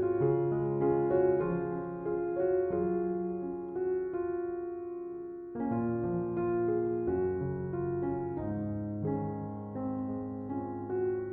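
Gentle piano background music, sustained notes that thin out and nearly stop about five seconds in before the playing picks up again.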